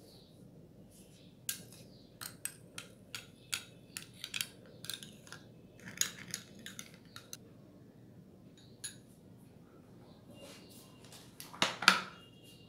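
Metal teaspoon clinking against a small glass bowl in quick, irregular strokes while stirring gelatin into milk. Near the end a louder clatter of dishes being set down.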